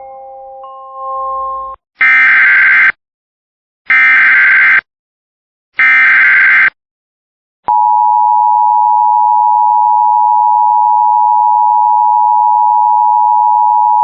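Emergency Alert System broadcast tones: three short bursts of screeching SAME header data, each about a second long, then from about 8 seconds in the steady two-tone EAS attention signal. Together they announce an incoming alert.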